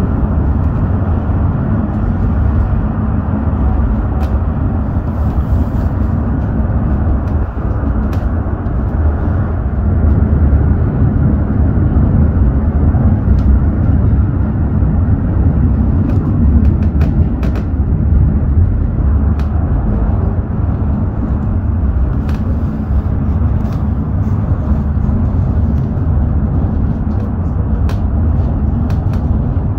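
Parsenn funicular car travelling uphill: a steady, loud low rumble of the car running on its track, with faint clicks here and there.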